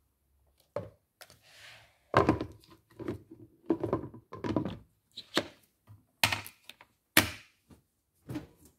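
Hard plastic knocks and clunks, about nine in all, as the lid of a plastic microwave cooking pot is fitted and pressed down into place and its lever handle is worked.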